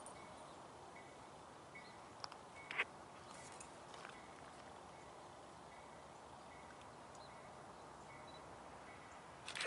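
Faint, steady noise of a freight train approaching from a distance, with a few light clicks and a faint high tone that comes and goes in short repeats.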